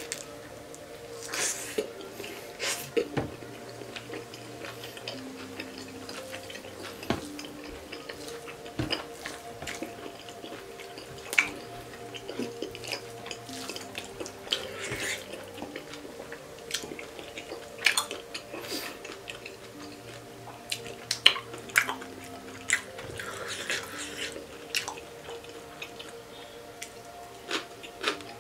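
Close-miked eating of pork curry and rice: wet chewing and mouth smacks with frequent short clicks, some from dishes, over soft background music with sustained notes.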